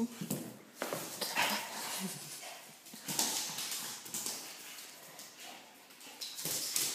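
Bull terrier moving about on a tiled floor: irregular taps and scuffs of its claws on the tiles, with some short dog sounds.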